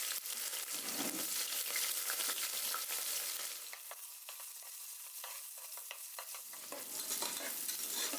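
Onions frying with whole spices in hot ghee and oil in a pressure cooker, sizzling as they are stirred. The sizzle is quieter for a couple of seconds in the middle.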